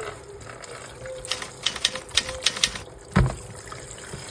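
Kitchen clatter: a quick, uneven run of about seven sharp taps, then one heavy thump about three seconds in.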